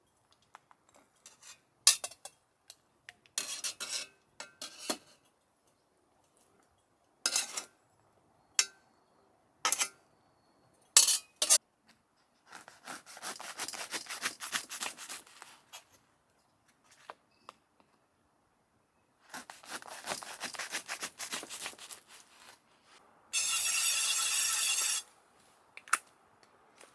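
Camp cooking sounds: metal utensils clinking and knocking against pots and dishes, with longer stretches of scraping and rubbing. A steady hiss lasts about a second and a half near the end.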